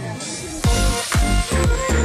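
Electronic dance music: a falling sweep and a noise swell, then the beat drops about two thirds of a second in with a heavy kick drum about twice a second.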